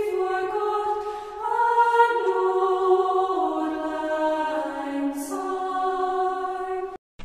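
Slow choral background music: several voices holding long notes that change pitch every second or so, then stopping suddenly near the end.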